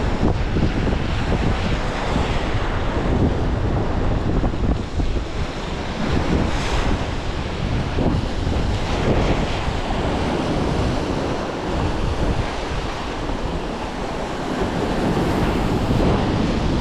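Wind buffeting the microphone in an uneven low rumble, over the steady wash of sea waves.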